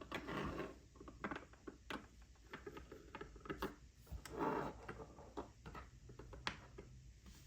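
Light clicks and taps of fountain pens being handled and laid side by side to compare their length, with two brief swishes of rubbing or sliding.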